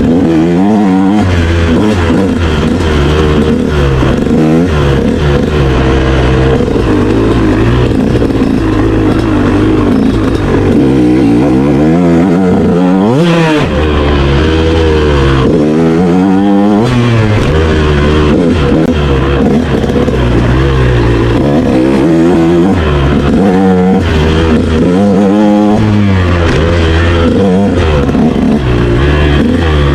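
Motorcycle engine revving up and down repeatedly as the bike is ridden, with one sharp rise in revs about halfway through.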